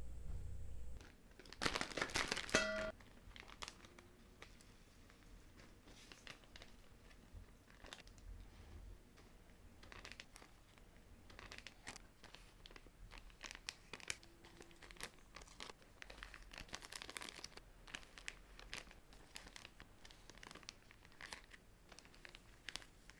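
Small plastic spice sachets crinkling as they are handled and torn open. A louder tearing rustle comes about two seconds in, followed by many soft, scattered crinkles.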